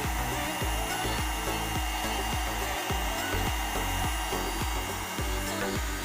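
Semilac Compakt Lite electric nail drill running steadily with a high whine, under background music with a bass line.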